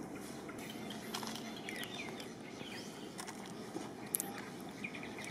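Outdoor ambience: a steady low hiss with a few short, high chirps around the middle and a sharp click about four seconds in.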